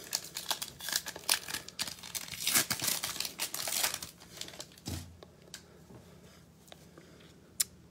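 Plastic trading-card pack wrapper crinkling and tearing as it is ripped open by hand and the cards are pulled out. Most of the crackling is in the first four seconds, followed by quieter handling and one sharp click near the end.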